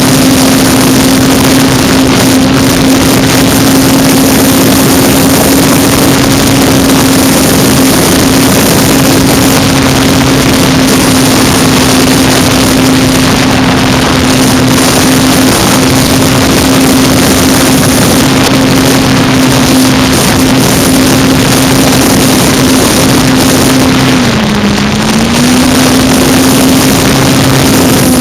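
Electric motor and propeller of a Parkzone F4U Corsair RC model plane, heard from on board in flight: a steady droning hum over loud rushing air noise. The pitch dips briefly near the end, as the throttle eases back, then returns.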